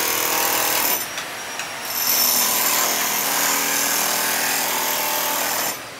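A power tool's motor running at a steady pitch, cutting out about a second in and starting again about two seconds in.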